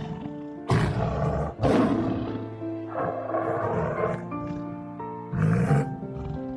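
Four loud, rough animal calls over background music with held notes. The first two come close together about a second in, and the last comes near the end.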